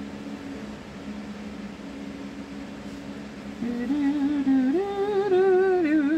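A woman humming a wavering tune, starting a little past halfway and getting louder, over a steady low background hum.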